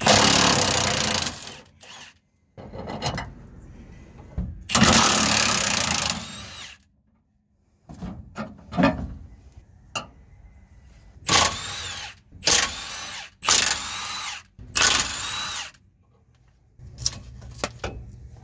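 Cordless impact wrench running in about seven short bursts, spinning the nuts off the rear sway bar end links. Five of the bursts come in quick succession over the middle of the stretch, with clinks of metal tools and parts between them.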